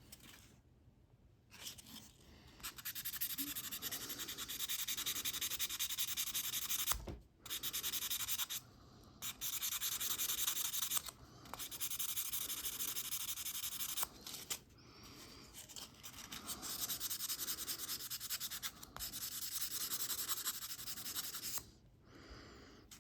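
Sandpaper rubbing by hand on a watch case in rapid back-and-forth strokes. The strokes come in several runs broken by brief pauses.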